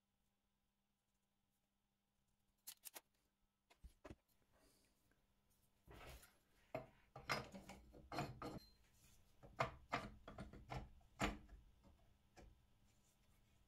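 Near silence, then a few light clicks about three seconds in, followed by a run of irregular knocks and scrapes of objects being handled from about six to twelve seconds.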